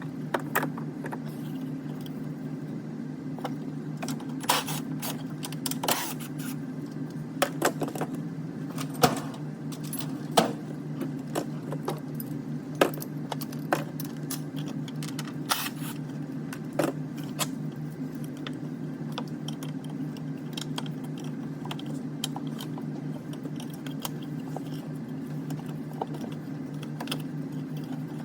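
Irregular sharp metallic clicks and clinks of hand tools and parts being handled during a car battery replacement, thickest in the first half, over a steady low hum.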